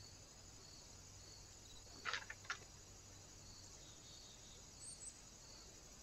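Faint, steady high-pitched chirring of insects, pulsing slowly, with two short sharp sounds close together a little past two seconds in.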